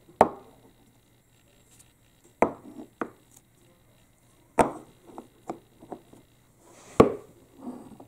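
Balls knocking and rolling along a HABA wooden marble run: sharp wooden clacks every couple of seconds, each followed by a brief rattle as the ball runs on down the track, with lighter clicks in between.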